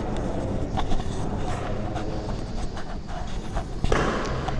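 Steady low rumble of a large indoor badminton hall with faint background chatter, a few light knocks, and one sharp smack about four seconds in.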